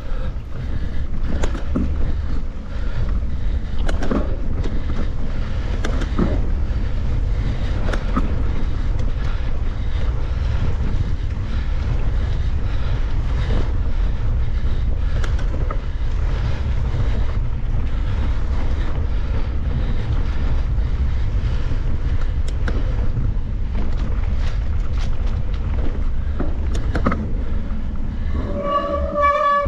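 Heavy wind rumble on the microphone of a mountain bike ridden along a trail, with frequent knocks and rattles from the bike over the ground. Near the end there is a short, pulsing high squeal.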